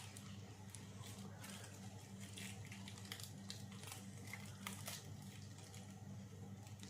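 Faint crinkling and small clicks of a plastic card wrapper being handled and torn open, over a steady low hum.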